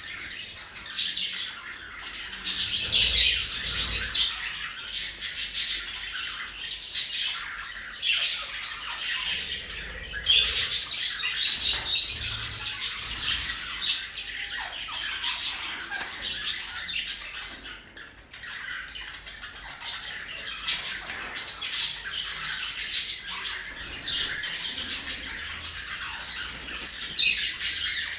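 Pet parrots and budgerigars calling together: a busy, continuous stream of short, high squawks and chirps.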